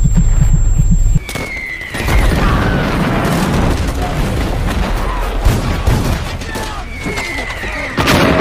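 A low, regular heartbeat-like throbbing with a steady high ringing tone cuts off about a second in. Battle sound effects take over: gunfire, explosions and shouting, with falling whistles twice. A loud blast comes near the end.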